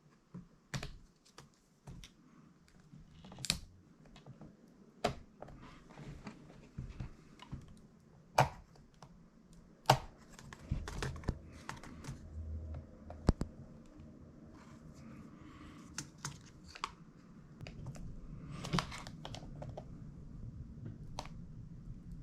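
Irregular small plastic clicks and taps as fingers and a tool work at the ribbon-cable locking bars inside an opened laptop, with a few sharper clicks among them.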